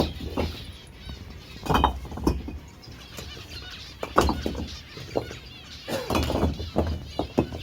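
Small birds chirping, mixed with irregular knocks and clattering.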